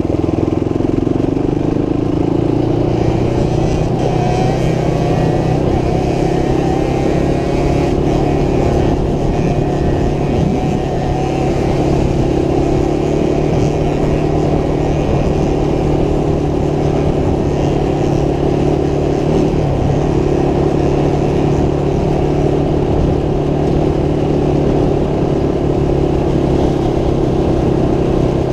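Motorcycle engine running under way, its pitch rising over the first few seconds and then holding steady, with a loud, constant note.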